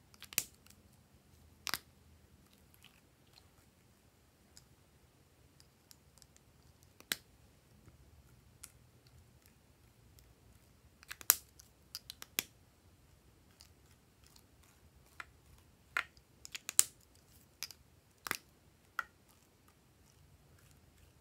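Sticky clicks and small pops from glossy slime as pen tips are pressed into and dragged across its surface, a dozen or so sharp snaps coming irregularly, a few at a time.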